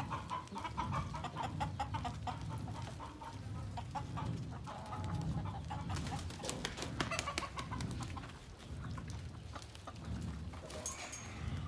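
Domestic chickens clucking in a mixed goat-and-poultry pen, with scattered small clicks and knocks and a low rumble underneath.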